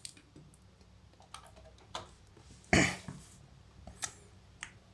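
A few small clicks and handling knocks from setting up a mechanical keyboard and plugging in its cable, with one louder short knock about three seconds in.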